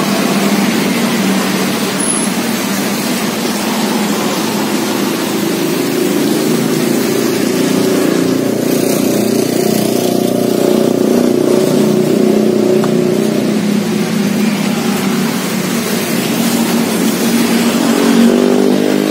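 Steady noise of passing road traffic, with vehicle engines running; near the end one engine rises in pitch as it revs.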